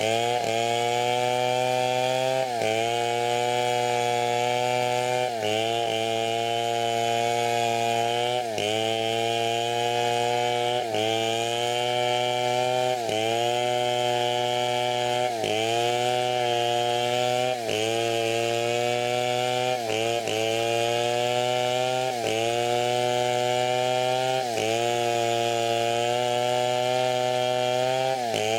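A large two-stroke chainsaw running at full throttle, ripping lengthwise through a teak log. Its engine pitch sags briefly and picks back up about every two seconds as the chain bites and the load eases.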